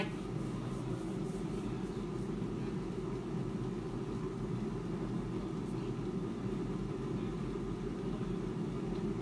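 Klarstein AeroVital air fryer running mid-cycle with chicken thighs inside: a steady, even fan hum.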